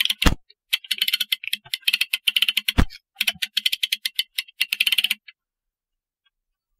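Rapid metallic clicking in several quick runs from a mainspring winder, its ratchet clicking as the winder is worked, with one knock about three seconds in; the clicking stops a little after five seconds.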